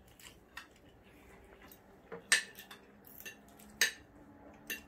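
Spoons and forks clinking and scraping against plates during a meal: scattered sharp clinks, the two loudest a little after two seconds in and about a second and a half later.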